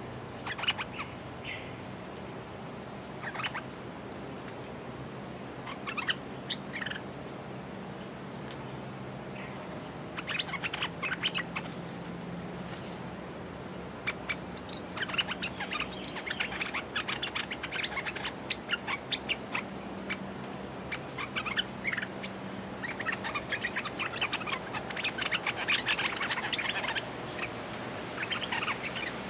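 Dok taeng bulbuls singing in short bursts of quick chattering chirps, sparse at first and nearly continuous from about halfway through. This is the calling of a caged decoy and a territorial wild bird at a trapping cage.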